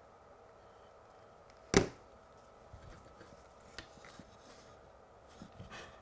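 A single sharp knock of a tool or hand against the wooden baseboard and track about two seconds in, then a few faint small ticks from handling the soldering iron and solder, over quiet room tone with a faint steady hum.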